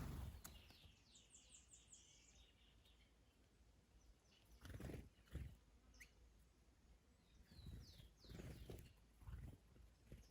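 Faint garden birdsong: a quick run of five or six high chirps about a second in, and more chirps around eight seconds and near the end, with low gusts of wind buffeting the microphone in between.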